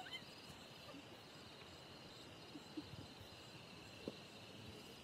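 Faint outdoor ambience of insects buzzing steadily at a high pitch, with a short rising chirp at the very start and a few soft knocks, the clearest about four seconds in.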